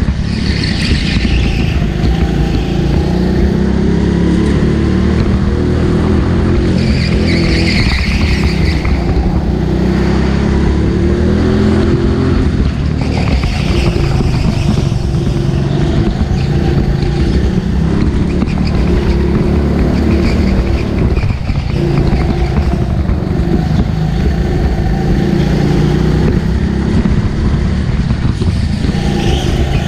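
Go-kart engine running hard through laps, its pitch rising and falling as the throttle opens and closes. Brief high-pitched squeals about a second in, around eight seconds and around fourteen seconds.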